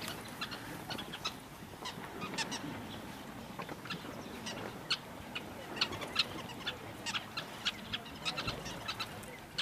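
Sociable weavers calling at their colony: a steady stream of short, sharp chirps, several a second, overlapping and irregular.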